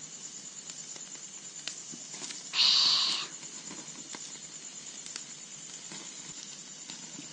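Night insects trilling steadily in a high, evenly pulsing tone, with a few small clicks. About two and a half seconds in comes one loud, short hiss lasting under a second.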